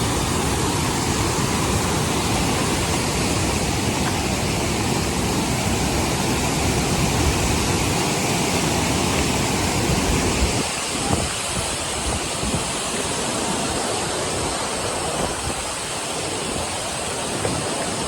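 Steady rushing wind with low buffeting rumble on the microphone; the rumble eases suddenly about ten seconds in, leaving a steady hiss.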